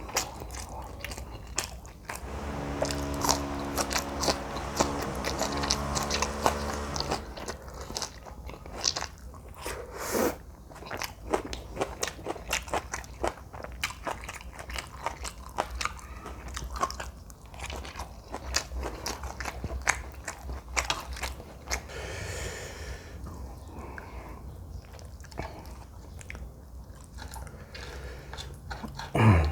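Close-miked eating sounds: a person chewing and biting a mouthful of jjajangmyeon noodles, with many small wet mouth clicks. About two seconds in, a low held hum lasts some five seconds.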